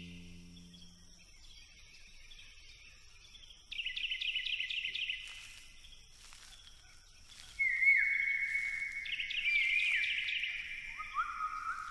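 Birds calling: short bursts of rapid, repeated chirps, three times, then longer drawn-out calls at a lower pitch from about two-thirds of the way in. A held music chord fades out during the first second.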